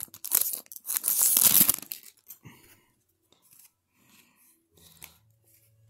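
Foil trading-card pack wrapper being torn and crinkled for about two seconds, then only faint rustling of the cards being handled.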